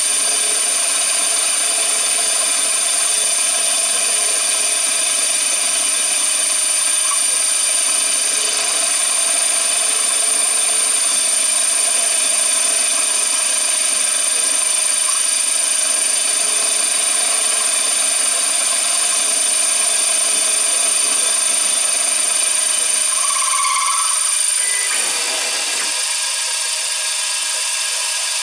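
CNC machine running and cutting, a steady power-tool noise with a constant high whine. The lower part of the sound drops away near the end.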